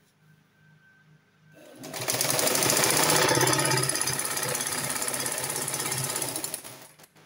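Black Chinese-made domestic straight-stitch sewing machine, driven by a small electric motor, starts up about two seconds in and stitches a seam at speed with a rapid, steady clatter, then stops near the end.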